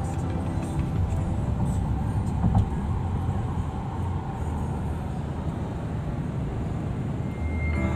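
Road and engine noise heard from inside a moving car's cabin: a steady low rumble of tyres and engine, with a short high beep near the end.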